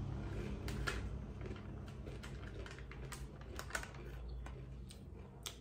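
Crinkling and crackling of a plastic snack packet being handled, a quick irregular run of sharp clicks, over a steady low hum.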